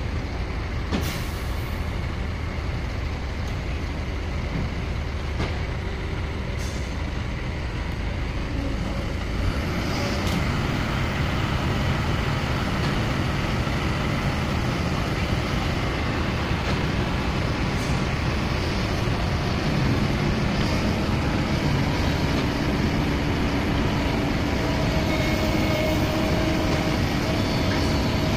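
A dump truck's diesel engine running, then, about nine or ten seconds in, the louder, fuller drone of Kobelco SK210 hydraulic excavators' diesel engines working as they dig, with a few short sharp noises along the way.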